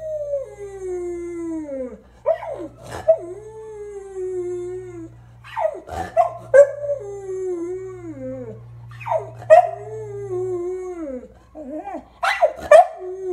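An American Eskimo Dog howling: about five long howls that waver and fall in pitch, broken by short, sharp yips that are the loudest sounds.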